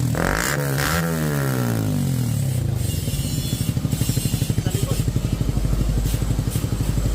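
Suzuki Raider 150's single-cylinder engine through an Akrapovic aftermarket exhaust. The revs fall back from a throttle blip over the first two seconds, then it idles with a steady, rhythmic exhaust pulse.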